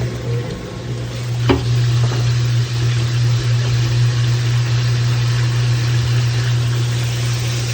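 Kenmore washing machine running with a steady low hum under a rough, gritty noise, and a single knock about a second and a half in: the noise of a bad transmission.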